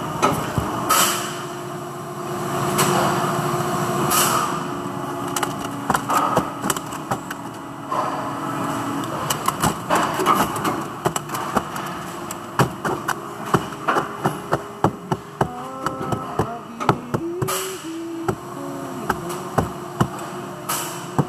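Factory floor noise: a steady machine hum with many sharp clicks and knocks, coming thicker in the second half.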